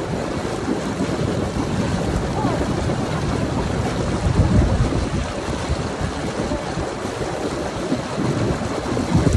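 Water splashing and churning as a person kicks and beats it in a hot tub, with wind buffeting the microphone. The splashing swells loudest about four seconds in and again near the end.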